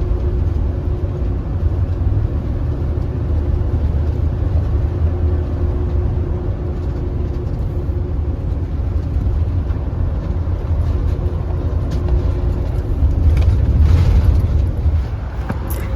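Road vehicle driving: a steady low rumble of engine and road noise with a faint constant hum, swelling briefly about fourteen seconds in.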